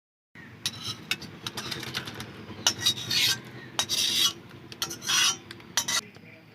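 A spatula scraping and clacking against a cooking pan as a thick, slightly saucy curry is scooped out of it. There are a dozen or so quick clicks and strokes and several longer scrapes.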